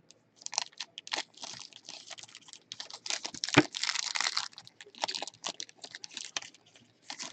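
Trading card packs and cards being handled: foil wrappers crinkling and tearing, with quick irregular clicks of card stock being flicked through.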